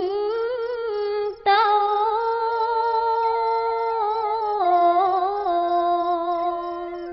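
A woman's voice chanting Khmer smot, the unaccompanied Buddhist verse chant, in long held notes that waver slowly. A short breath breaks it about a second and a half in, and the voice fades near the end.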